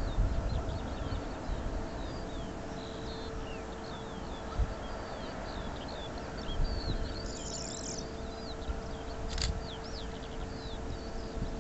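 Songbirds chirping and singing over gusts of wind buffeting the microphone, with a faint steady hum underneath.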